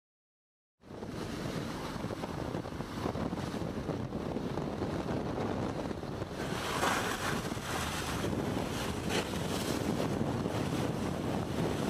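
Wind buffeting the microphone and waves rushing past a small boat moving at sea, starting just under a second in, with a louder splash of water about six to seven seconds in.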